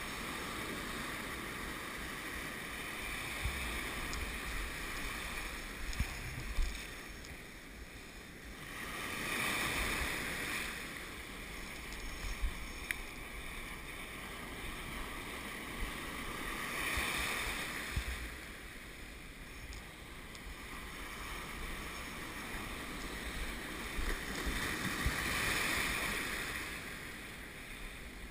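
Ocean surf breaking and washing around the shallows, swelling up three times about seven or eight seconds apart, with low wind rumble on the microphone.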